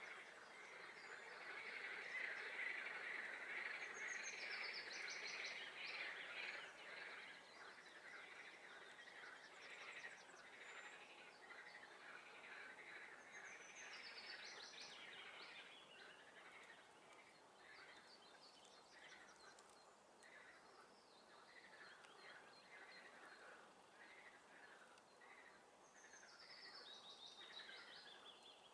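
Faint chorus of frogs calling in rapid pulses, loudest in the first few seconds, with a songbird's short descending trilled song coming in three times, about ten seconds apart.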